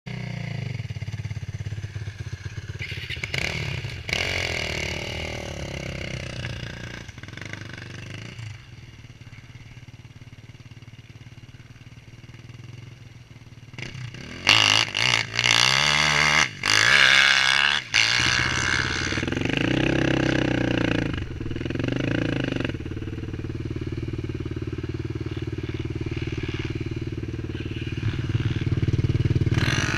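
Suzuki LT-R450 quad's single-cylinder four-stroke engine idling, revved hard several times in quick blips about halfway through, then running steadily as the quad pulls away.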